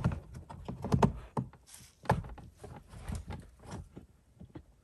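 Irregular clicks and knocks of the blower motor resistor being pushed and worked into its slot in the car's heater housing, with the strongest knocks about a second in and again a little after two, three and nearly four seconds in.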